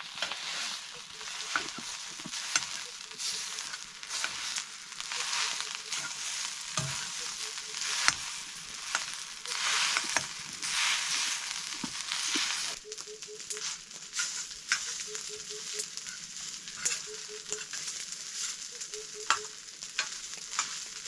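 Rice frying in a hot pan with a steady sizzle, stirred with a spatula that scrapes and knocks against the pan again and again.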